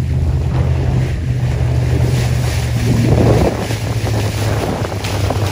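Tour boat's motor running with a steady low hum while wind buffets the microphone, briefly louder about three seconds in.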